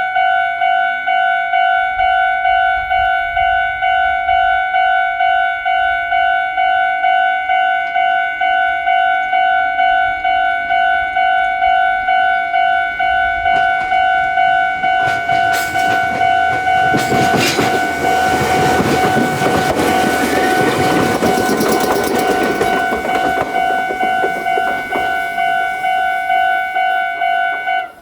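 Japanese railroad crossing warning bell ringing its repeated kan-kan, just under two dings a second. A train passes through the crossing from about halfway, its rushing wheel and running noise loudest for several seconds before fading. The bell cuts off suddenly at the end.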